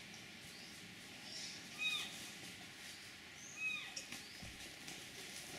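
Two short animal calls about two seconds apart, each a brief rise-and-fall pitched cry, over a faint steady background with a few soft high chirps.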